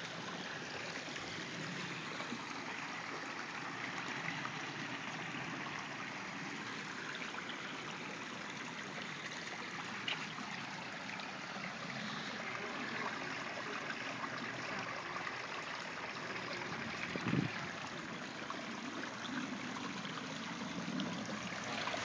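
Water of a pondless waterfall trickling and splashing steadily over rocks and pebbles down a short stream bed. A brief low thump sounds about two-thirds of the way through.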